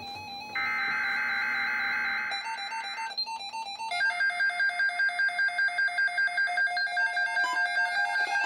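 NOAA Weather Radio SAME alert header, a harsh buzzing burst of digital data tones, ending about three seconds in. About a second later, weather alert radios start their alarms with rapid electronic beeping and chime tones, about three beeps a second, as they decode the incoming alert.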